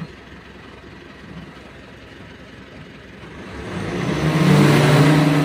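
Mitsubishi Strada pickup's turbo-diesel engine idling, then revved up about three seconds in, its pitch rising and the sound growing louder toward the end. The engine is blowing black smoke with no check-engine light, a fault the mechanic suspects comes from a holed turbo hose.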